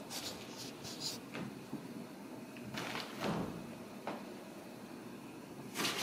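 Scattered knocks and thumps from kittens scampering and bumping about on a hardwood floor. There is a few small clicks in the first second, a heavier thump about halfway through and another loud knock at the end.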